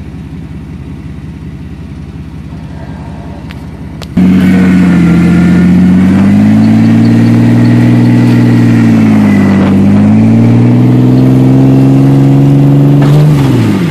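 Rock-crawling Jeep Wrangler's engine idling, then about four seconds in revving hard and held at high revs as the tyres climb over boulders, the pitch dipping briefly near the middle and rising again before it drops back off near the end.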